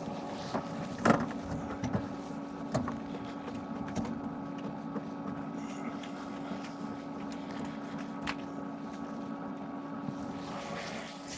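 A steady mechanical hum runs throughout, with a few sharp clicks and knocks of tools and fittings being handled; the loudest comes about a second in.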